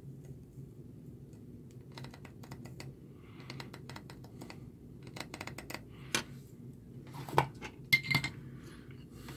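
Faint crackling and spitting of flux and molten solder in short spurts as a soldering iron floods solder across the pins of a surface-mount chip, over a low steady hum. A few sharper clicks near the end as the iron and solder wire are set aside.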